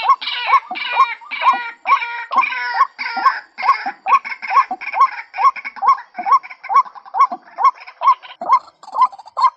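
White-breasted waterhen giving its lure call: a short, rising note repeated steadily, about two and a half a second. A denser, harsher calling runs over it for the first four seconds or so.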